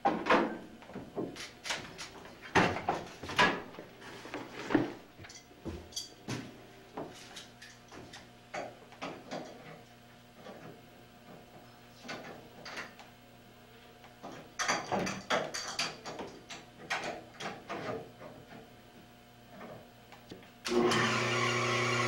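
Irregular knocks and clicks of hands and tools working on the mechanism of a screw-drive lift unit. About 21 seconds in, a machine starts abruptly and runs with a loud, steady hum.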